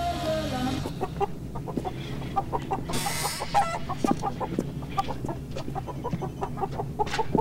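Chickens clucking in a quick, busy run of short calls.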